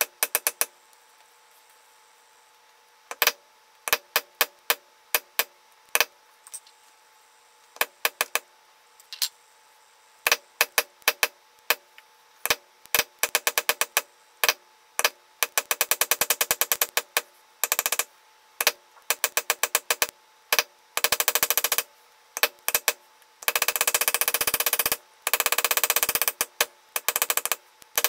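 Metal leather-stamping tool struck with a mallet on tooling leather: sharp taps, some single and some in short quick runs, with long rapid rolls of taps in the second half.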